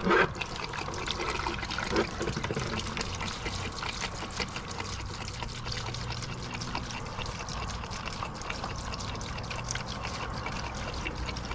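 Diesel fuel being poured into a truck's fuel-water separator, a steady liquid trickle to fill it before priming. There is a brief louder sound right at the start.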